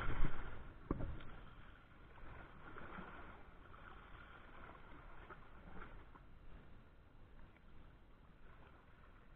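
Faint outdoor wind and water noise, a steady low rumble, with a few knocks in the first second or so.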